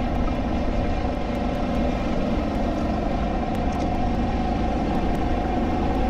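SODI LR5 rental kart's 160cc four-stroke engine running hard at racing speed, heard from on board, a steady engine note with a constant level.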